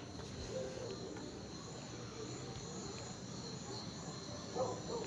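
Faint background of crickets chirring steadily at a high pitch, with a couple of faint low swells near the end.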